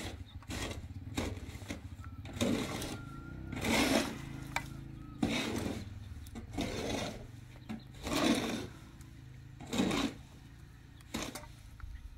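Handling noises as raw chicken pieces are laid onto a hinged wire grill basket: irregular scrapes, rattles and wet knocks, about a dozen, over a low steady hum.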